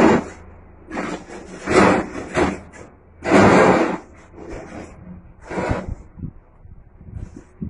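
A series of short rustling swishes from hands brushing and striking together during signing, each about half a second long; the longest and loudest comes a little past three seconds in, followed by fainter small ticks.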